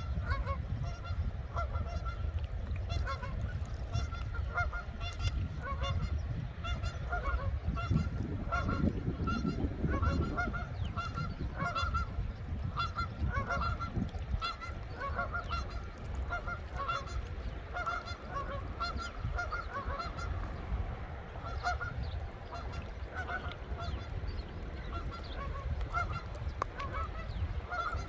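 Canada geese honking over and over in short calls, over a steady low rumble.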